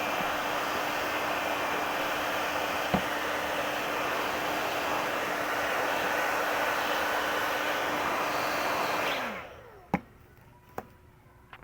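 Hot air rework station blowing with a steady rushing noise and fan hum, then switched off about nine seconds in, the hum sliding down as the fan winds down. A few sharp clicks follow.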